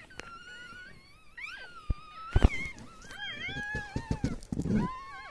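A pug whining in a run of high, wavering cries. A sharp knock about halfway through is the loudest moment, with rustling of blankets around it.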